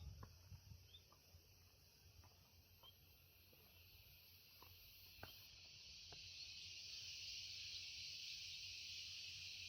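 Cicadas buzzing in a continuous high chorus, swelling louder about six seconds in, with a few faint scattered ticks.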